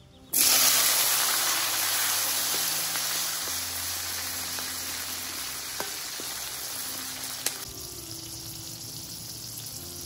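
Whole chilies and a tomato dropped into hot oil in a steel wok, bursting into a loud sizzle that slowly dies down and softens further near the end, with a couple of faint clicks.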